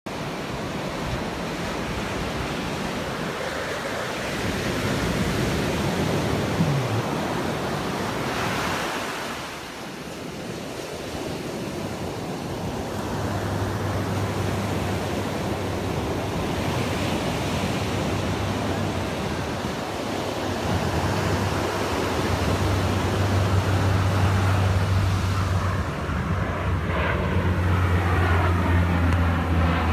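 Surf washing on a beach with wind on the microphone. About halfway through, the low, steady drone of a four-engine turboprop cargo plane, C-130 type, rises as it flies in low. Near the end the pitch falls as it passes overhead.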